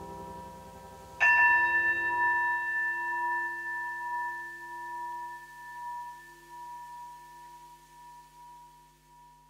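A held chord dies away, and about a second in a single bell-like tone is struck. It rings out with a few clear pitches and fades slowly, closing the piece of music.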